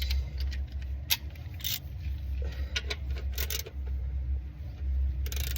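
Scattered sharp metallic clicks, clinks and scrapes of tools and parts being handled on the car, over a low steady rumble.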